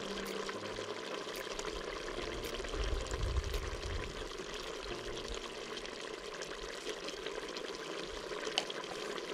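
Water being poured into a large aluminium pot of curry, a steady splashing pour into the liquid.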